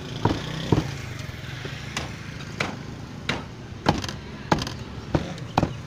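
Heavy steel meat cleaver chopping beef on a wooden stump chopping block: about nine solid thunks, roughly one every 0.6 s, with a pause of about a second after the first two, as chunks are cut down for keema (minced beef). A steady low hum runs underneath.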